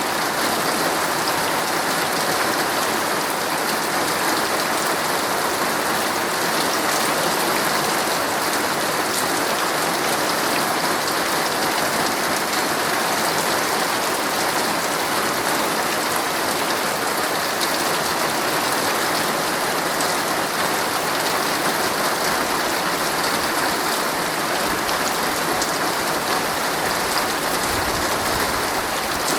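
Heavy rain drumming steadily on a tent, a dense even hiss flecked with individual drop hits.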